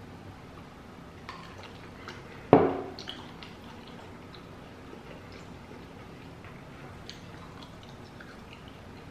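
A glass of ice water set down on a wooden table: one sharp thump about two and a half seconds in, ringing briefly. Faint scattered small clicks follow.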